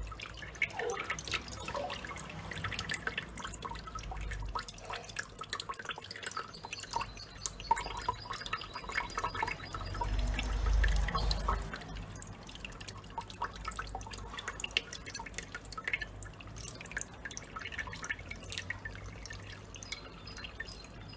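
Thin stream of tap water trickling and dripping into cupped hands, with a small bird bathing and splashing in the pooled water. There is a fuller splash for a moment about halfway through.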